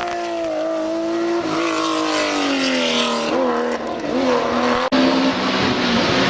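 A historic rally car's engine running hard on a stage, its note sagging and picking up again with brief lifts of the throttle. About five seconds in it cuts off sharply and a different, steadier engine note takes over.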